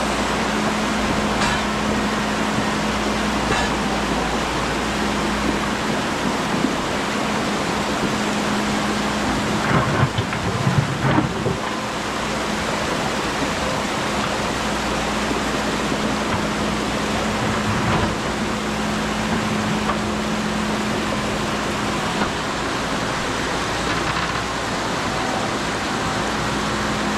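Menzi Muck spider excavator running steadily: an even hum under a loud rushing noise, with a short cluster of knocks about ten seconds in.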